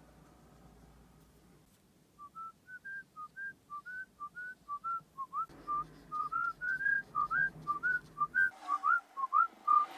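A whistled tune, the melody of a background music track, starting about two seconds in as a quick string of short notes, some sliding up into the note.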